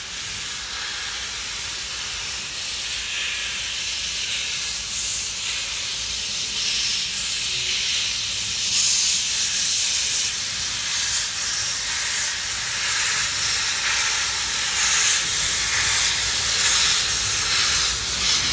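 JNR Class C56 steam locomotive No. 160 drawing slowly closer, hissing steam from its open cylinder drain cocks. The hiss grows louder as it nears, swelling in uneven pulses in the second half.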